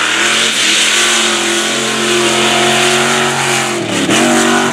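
Mega truck's big engine running at high revs under hard acceleration, with a brief drop in revs about four seconds in before it climbs again.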